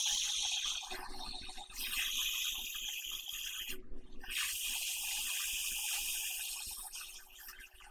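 Hot air rework station blowing on the circuit board while desoldering components: a steady airflow hiss that stops briefly about four seconds in, when the nozzle moves away, then resumes and fades near the end. A faint steady hum runs underneath.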